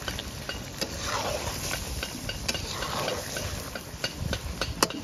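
Metal spatula stirring goat boti curry in a metal kadai, scraping and clicking against the pan, with a few sharper taps near the end.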